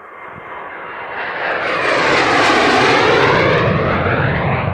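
Low-flying jet aircraft passing close, its engine noise swelling to a loud peak about two to three seconds in, with a hiss that sweeps down and back up in pitch over a deep rumble.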